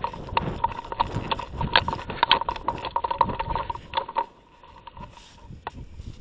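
Footsteps and rattling, knocking gear and camera handling noise from a player on the move, an irregular jumble of knocks over a low rumble that settles after about four seconds. A thin steady high tone runs underneath.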